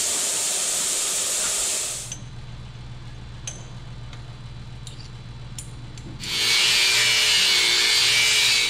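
Power tool cutting through the welds that hold a grill shell to a car chassis. A loud cutting noise stops about two seconds in, leaving a low hum and a few light clicks, and a second cut with a steady whine starts about six seconds in.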